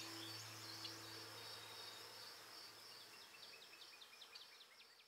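Faint nature ambience fading out: a steady high insect trill, with a bird giving a quick run of short chirps over the last two seconds. The last low notes of ambient music die away in the first second and a half.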